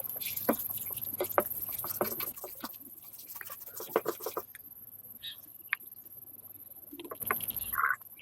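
Irregular light clicks and taps, many in quick succession for the first few seconds, then sparser, with a short higher-pitched squeak near the end.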